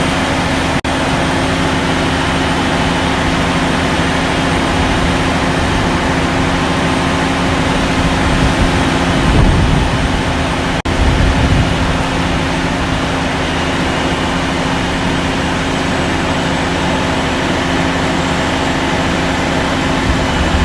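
Heavy diesel engine of a mobile crane running steadily with a constant hum, swelling into a deeper rumble about nine and eleven seconds in as it works harder.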